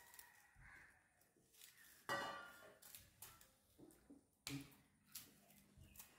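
Faint clinks of kitchen dishes in a quiet room: one about two seconds in rings briefly, and another knock comes about four and a half seconds in.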